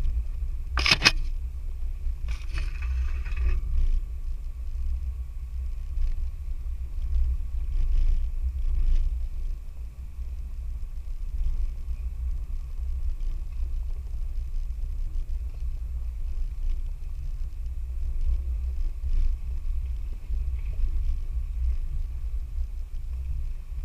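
Low, steady rumble of a 4x4 vehicle working slowly along an off-road trail. A sharp knock comes about a second in, followed by a short rough scraping noise.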